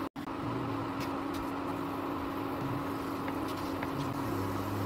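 Kachoris frying gently in oil on low heat: a steady soft sizzle with a few faint pops, over a steady hum. The sound cuts out for a moment just after the start.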